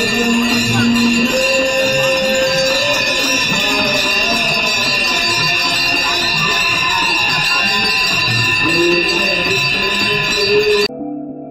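Ganga aarti bells ringing without pause over singing and crowd voices. Near the end it cuts off abruptly into soft background music.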